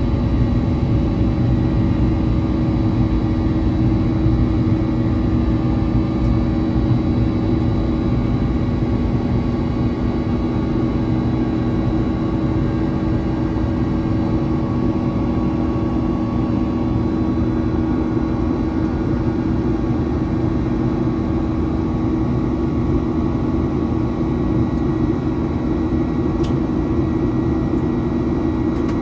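Jet airliner cabin noise in the climb after takeoff: a steady roar of engines and airflow with a few constant hums layered in.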